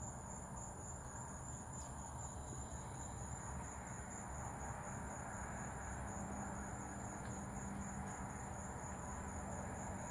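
Crickets chirring in a steady, high-pitched, unbroken drone over an even low background hiss.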